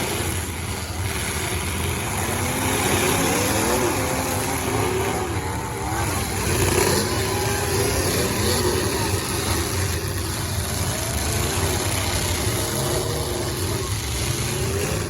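Several demolition derby cars' engines running at once, revving and idling, their pitches rising and falling over one another.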